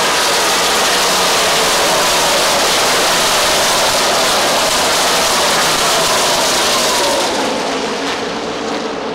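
A field of NASCAR Cup stock cars' V8 engines at full throttle, passing in a pack on the restart, their many engine notes overlapping and dropping in pitch as each car goes by. The sound eases a little near the end.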